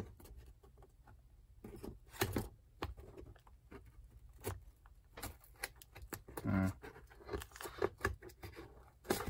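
Small scissors picking and scraping at clear packing tape on a cardboard box: scattered clicks, scratches and taps of the blade on tape and cardboard.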